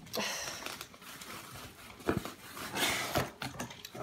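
Packing tape being picked at and peeled from a cardboard box: rasping, rustling scrapes with a few light knocks, the loudest rasp about three seconds in.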